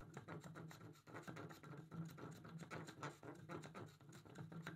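Small Veritas spokeshave taking skewed cuts across the end grain of a wooden piece: a quick run of faint, short scraping strokes.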